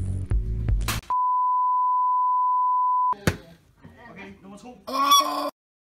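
A single steady electronic beep, one pure tone held for about two seconds. Before it a low hum ends in a sharp click; after it come another click, faint voices and a short loud voice, and then the sound cuts off.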